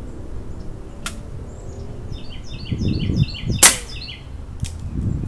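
Crosman .177 pump-up pellet gun firing: one sharp, loud crack a little past halfway, with lighter clicks about a second before and after it. A bird chirps a quick run of short notes around the shot.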